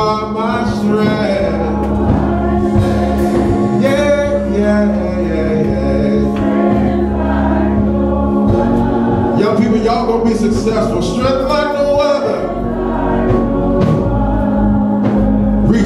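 Gospel music: a choir singing over steady instrumental backing with held chords and a bass line.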